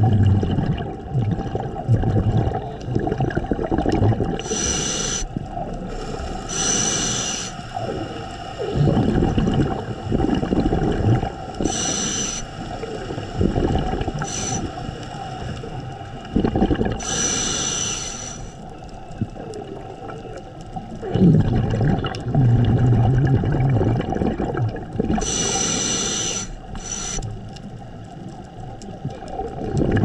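Scuba diver breathing through a regulator underwater: short hissing inhalations every few seconds, each followed by a low burble of exhaled bubbles.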